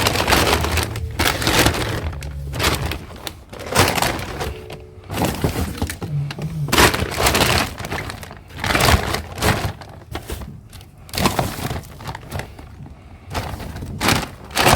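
Irregular crackling and clattering of a pile of scrap electrical cables and debris being pulled out and handled.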